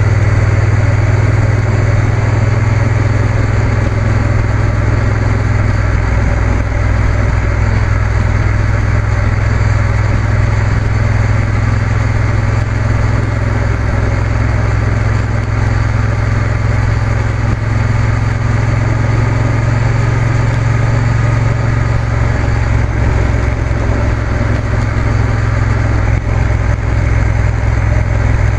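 Motorcycle engine running at a steady cruising speed, its low note holding nearly constant, under a steady rush of wind and road noise.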